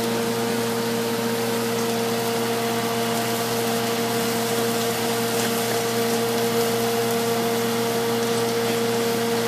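Steady machine hum with an even hiss over it, unchanging throughout, like an appliance motor or fan running.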